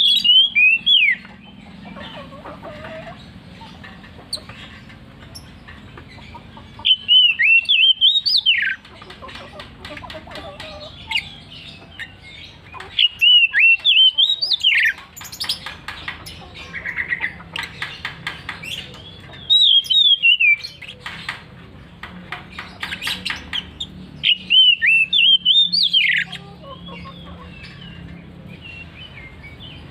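Oriental magpie-robin (kacer) singing: loud, high bursts of quick repeated notes lasting one to two seconds, coming back about every six seconds, with quieter chirps between the bursts.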